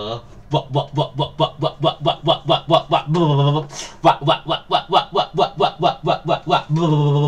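A man's voice singing rapid staccato syllables on one low pitch, about five a second, with a brief held note about three seconds in and a long held note near the end.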